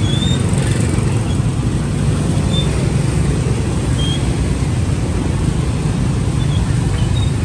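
Steady road-traffic noise, a loud low rumble that never lets up, with a few brief high chirps here and there.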